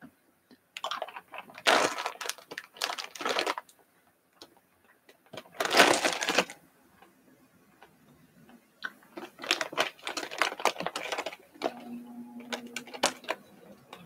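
Person chewing a jelly bean close to the microphone: clusters of wet clicks and mouth smacks, coming and going in bursts, with a short closed-mouth hum near the end.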